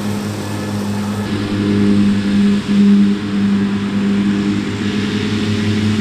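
Krone BiG M 420 self-propelled mower's diesel engine running steadily under load while mowing, a constant low drone.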